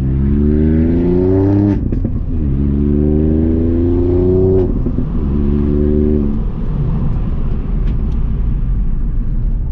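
Ford Fiesta ST Mk8's turbocharged 1.5-litre three-cylinder engine through a Scorpion valved cat-back exhaust with the GPF deleted, heard from inside the cabin. It accelerates hard through two gears, rising in pitch, with a break and a short sharp crack at each upshift. After a brief pull in the next gear it eases off to a steady low rumble for the rest.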